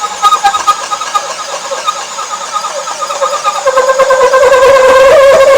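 DeWalt Atomic 20V cordless drill running under heavy load while boring through lumber: a steady motor whine that drops in pitch and grows louder about three and a half seconds in as the bit bears down.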